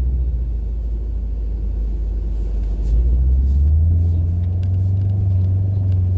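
Honda CR-V's engine running under load as it drives through snow; about three seconds in the engine note rises and holds higher as it is given more gas.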